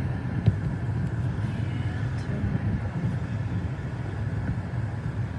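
Steady low rumble of road and engine noise inside a moving car, with one short click about half a second in.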